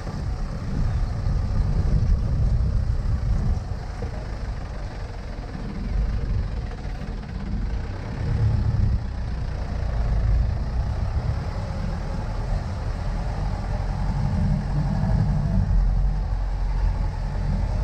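Low engine and road rumble heard from inside a vehicle driving over a rough, stony unpaved road. The sound is steady in kind but swells and falls every few seconds.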